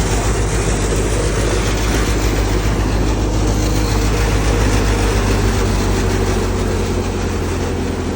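Tractor-driven wheat thresher running steadily: the tractor engine's low, even drone under a loud, continuous rushing noise from the threshing machine.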